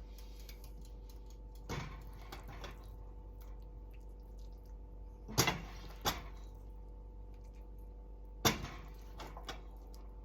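A serving spoon knocking and scraping against a cooking pan and dish as cooked rice is spooned out, with sharp knocks about 2, 5½, 6 and 8½ seconds in, over a steady faint hum.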